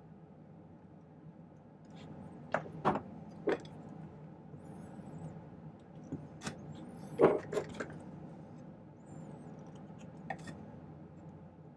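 Pliers clicking and tapping against silver wire as its end is bent over into a hook: a few sharp clicks about three seconds in, another cluster about seven seconds in, and one more near the end.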